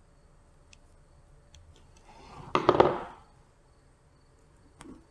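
Brief rustling with a few sharp clicks, about halfway through, as hands handle a small drone frame and its wires. Otherwise only a few faint ticks.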